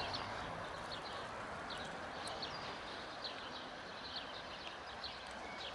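Quiet outdoor ambience: a steady background hiss and hum with many faint, short, scattered high chirps or ticks.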